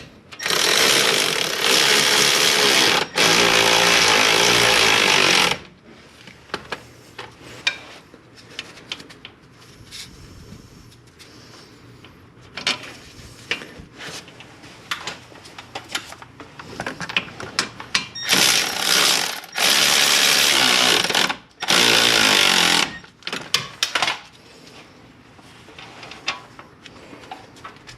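Impact wrench running hub bolts in, in long hammering bursts: two near the start and three shorter ones about two-thirds of the way through. Light metallic clicks and clanks of tools and parts fill the gaps.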